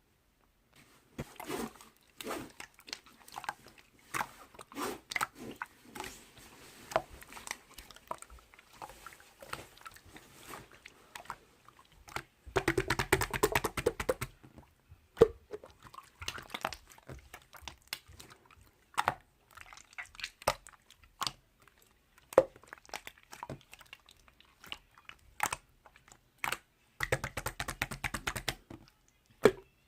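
Toy slime being played with by hand: scattered wet clicks and pops as it is pressed and pulled. Twice, about halfway and near the end, there is a short run of fast crackling clicks.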